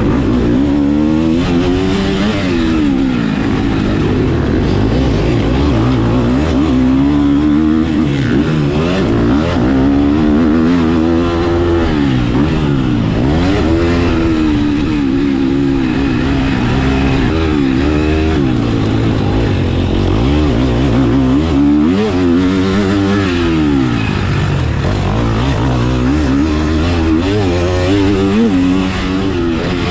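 KTM 250 SX-F four-stroke single-cylinder motocross engine at full race effort, its pitch climbing hard and dropping back every few seconds as the throttle is opened and shut along the track.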